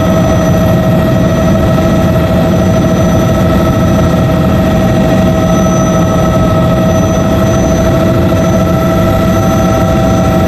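Bell 206B JetRanger helicopter in flight: a loud, steady drone of rotor, engine and gearbox with several steady whining tones above it, unchanging throughout.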